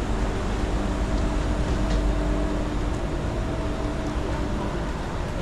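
City street ambience: a steady low rumble of traffic and engines, with a few faint ticks.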